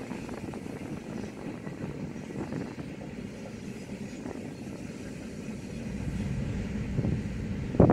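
BNSF double-stack intermodal freight train passing, a steady low running noise of the container cars on the rails, growing a little louder near the end, where a short loud burst of noise comes.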